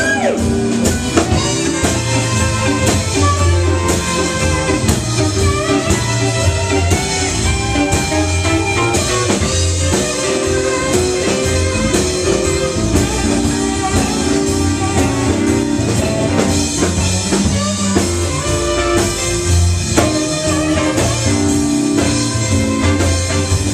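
Live blues-rock band playing an instrumental break: a saxophone solo over electric guitar, bass guitar, keyboards and drum kit.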